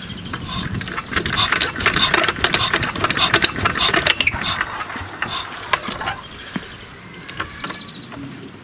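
Old petrol stationary engine turned over by its starting handle, clattering and clicking for about four seconds before the cranking tails off; it does not fire.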